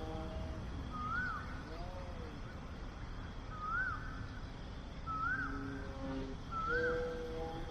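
An animal's short chirping call, a quick rise and fall in pitch, repeated about five times at intervals of a second or more, over a low steady rumble.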